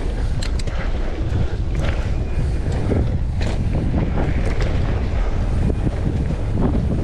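Wind buffeting the microphone of a POV camera on a mountain bike riding a trail, a steady low rush, with scattered knocks and clicks of the bike rattling over rough ground.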